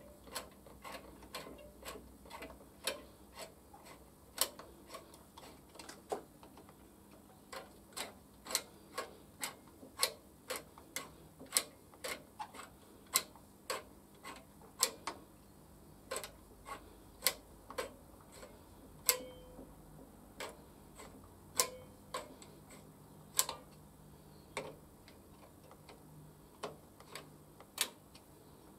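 Ratchet driver clicking as it turns the spring nuts on a motorcycle clutch pressure plate: sharp single clicks, about one to two a second, unevenly spaced with short pauses.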